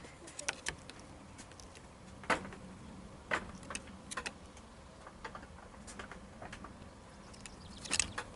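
Scattered sharp clicks and light taps right at the camera's microphone, a dozen or so at irregular intervals, with the loudest about two seconds in and a quick cluster near the end.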